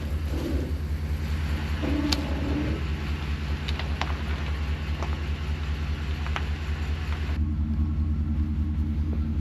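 Vehicle engine idling with a steady low hum, heard from inside the cab, with a few light clicks. A hiss above the hum drops away about seven seconds in.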